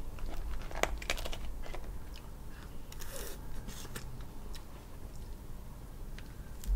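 Cooked crab being pulled apart by hand, with scattered sharp clicks and cracks of shell. About three seconds in there is a short slurp as meat is sucked from a crab leg.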